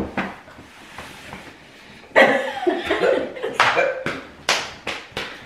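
A single sharp hand slap at the start, then, after a brief lull, hard laughter in bursts broken by a few sharp hand smacks.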